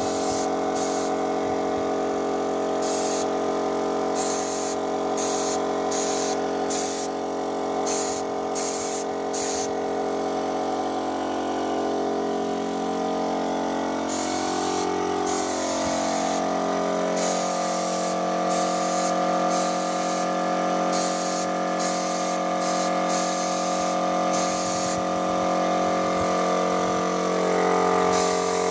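A machine's motor running steadily, its pitch wavering partway through, with repeated short bursts of hiss that start and stop.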